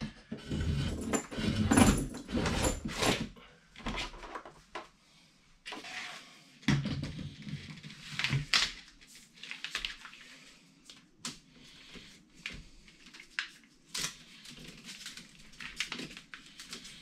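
Electrical cable being handled and pulled up into a breaker panel: irregular rustling and scraping with small clicks and knocks, busiest in the first few seconds.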